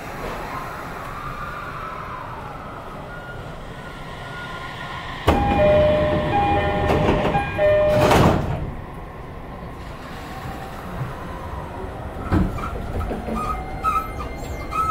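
Inside an E231-series commuter train, the door chime sounds about five seconds in: a loud two-note chime repeated several times. The sliding doors then shut with a thud about three seconds later. Near the end the train's VVVF inverter begins to whine in rising tones as it starts pulling away.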